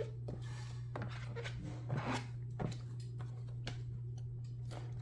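Chamois cloth rubbed over a clear photopolymer stamp to wipe the ink off, in short rubbing strokes with a few light knocks, over a steady low hum.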